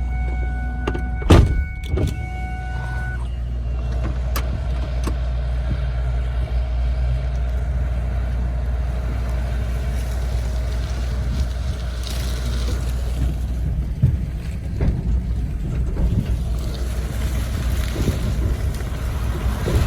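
Vehicle engine running steadily with a deep hum. A pitched tone with overtones sounds for the first few seconds and stops, and a sharp knock comes about a second and a half in.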